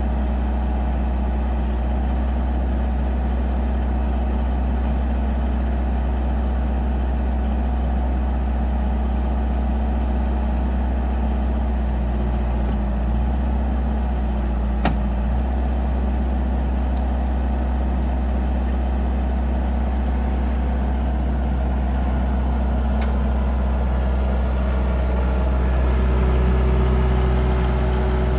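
JCB 1CX backhoe loader's diesel engine running steadily, with one sharp click about fifteen seconds in and the engine note rising a little near the end.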